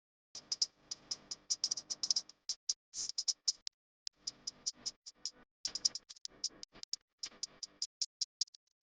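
Rapid, irregular clicking and tapping of a kitchen utensil against a mixing bowl, as in mixing cake batter by hand, with a short pause about four seconds in.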